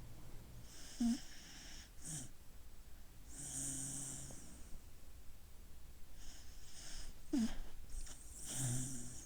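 Sleeping dog snoring and breathing slowly, about four breaths with a low steady snore in some of them. Two short sharp catches in the breath, about a second in and about seven seconds in, are the loudest sounds.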